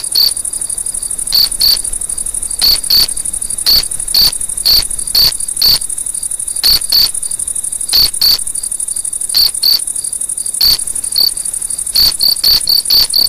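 Insects chirping: a steady high trill with louder chirps over it, often in pairs, about two a second.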